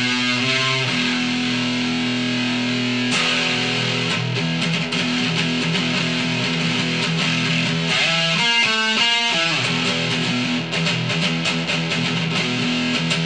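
Ibanez S470 electric guitar with DiMarzio Gravity Storm pickups, played through heavy distortion: long held chords and low notes, with a quick run of single notes about two-thirds of the way through. Recorded through a camera's built-in microphone.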